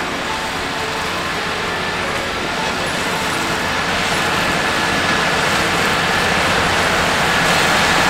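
Valtra T214 tractor's six-cylinder diesel engine running under load while its front-mounted flail mower shreds a green cover crop, a steady noisy running sound that grows slowly louder as the tractor approaches.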